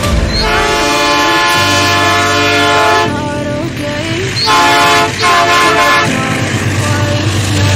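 Diesel freight locomotive's multi-note air horn sounding two blasts, a long one of about two and a half seconds, then a shorter one about a second and a half later, over a steady low rumble.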